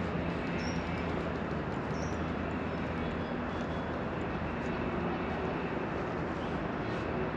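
Steady outdoor background rumble with a low hum, with a few short high bird chirps in the first two seconds.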